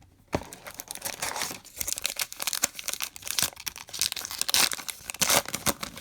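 Foil baseball card pack wrapper being torn open and crinkled, a dense irregular crackling, with a light knock about half a second in.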